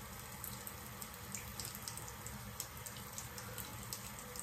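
Water running steadily from a bathroom tap, with a few faint soft ticks.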